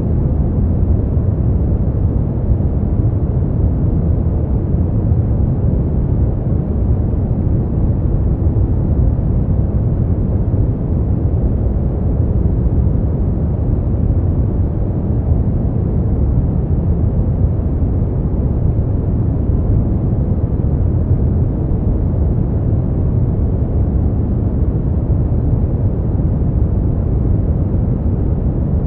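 Steady, unchanging synthetic noise for sleep and study, sold as white noise but weighted heavily to the low end, so it sounds deep and muffled, like a soft rumble with no hiss on top.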